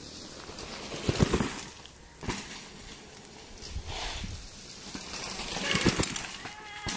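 Mountain bikes riding a dirt track over a jump: tyre noise on dirt that swells as a bike nears, with a few dull thumps.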